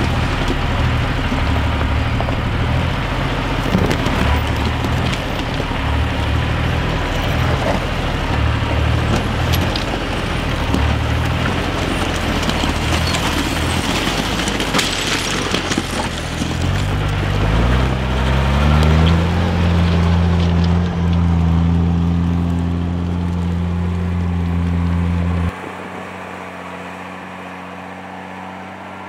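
Mercedes Unimog U1700L truck's six-cylinder diesel engine working at low speed over loose rocks, with stones crunching and clicking under the tyres. About seventeen seconds in the engine revs up and holds a steady, higher note, then drops suddenly to a quieter, steady engine sound near the end.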